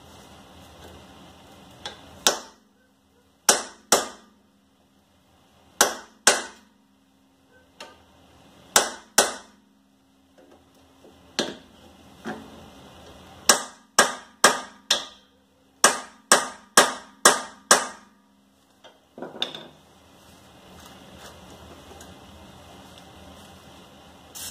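Sledgehammer blows on a seized rear wheel hub of a 2010 Toyota Prius to knock it loose: about twenty sharp strikes, mostly in pairs, with a faster run of eight or nine blows past the middle.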